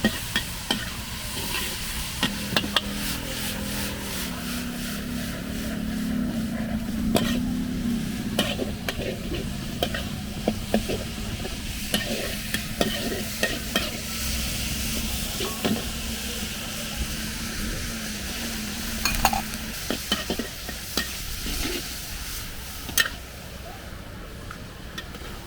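Food sizzling in a hot wok while a metal spatula stirs it and scrapes and clanks against the pan, with a low steady hum through most of it.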